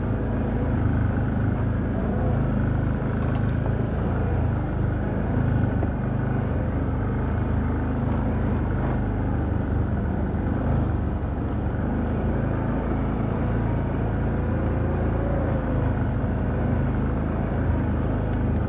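Can-Am Outlander ATV engine running steadily while riding along a trail.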